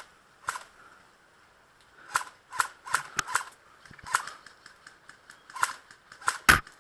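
A string of sharp clicks and snaps from an airsoft gun being handled and fired, about ten spread irregularly. The loudest, deepest snap comes near the end.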